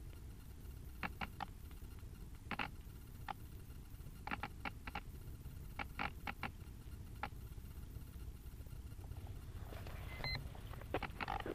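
Small sharp clicks in quick clusters of two or three, recurring every second or so, over a low rumble of wind on the microphone. A short beep sounds about ten seconds in, followed by a denser flurry of clicks.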